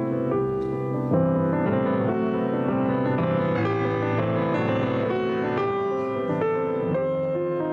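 A Steinway concert grand piano playing solo classical music: a continuous flow of notes over held lower notes.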